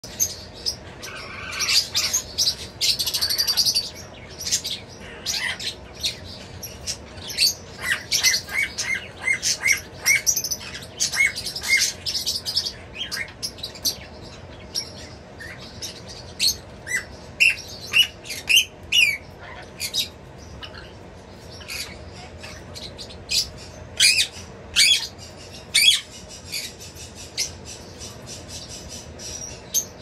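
Pet parrots, a parrotlet and an Amazon parrot, chirping and squawking in many short high calls, with a quick run of repeated chirps about eight seconds in.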